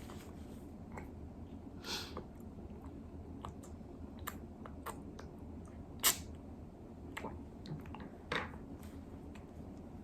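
A baby eating spoon-fed weaning food: scattered wet mouth smacks and light clicks over a low room hum, the sharpest click about six seconds in.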